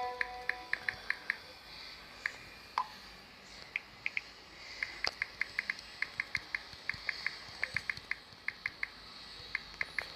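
Smartphone keyboard clicks: many short, quick ticks at an uneven pace, as from someone typing a message on a phone, with a brief steady tone in the first second or so.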